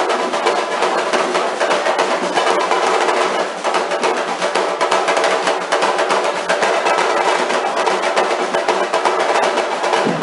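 Samba-reggae drum line of big surdo bass drums playing live, a loud, dense, driving beat that carries on without a break.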